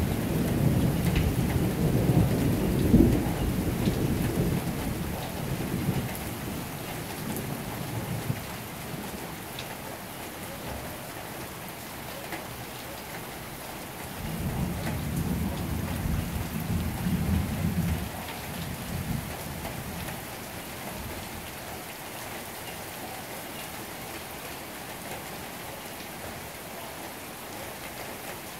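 Steady rain with two rolls of thunder: the first is already under way and fades out over the first several seconds, the second swells about halfway through and dies away a few seconds later.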